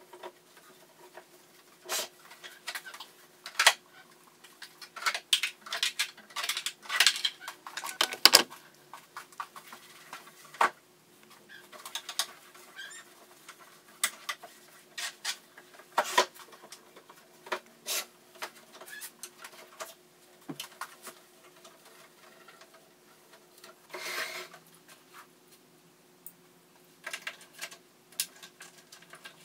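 Objects being handled at a vanity dresser: a drawer pulled open and items knocked and clattered against it in irregular sharp clicks and knocks, busiest a few seconds in, over a faint steady hum.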